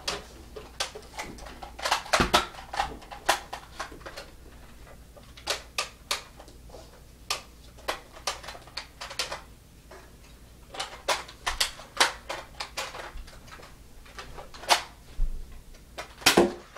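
Sharp clicks and knocks in irregular runs of several a second, with short lulls between them and a louder knock near the end.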